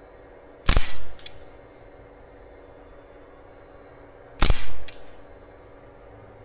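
Karma Airguns SLS .25 caliber precharged pneumatic air rifle firing two shots about four seconds apart, each a sharp crack followed by a faint click about half a second later.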